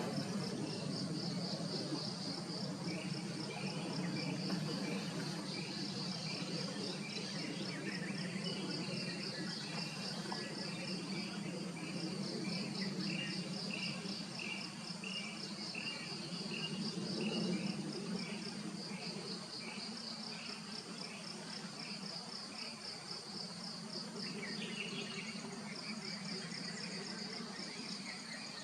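Forest insect chorus: a steady, pulsing high buzz throughout. Through the first two-thirds it is joined by a repeated short chirp, about one to two a second, over a steady low hum.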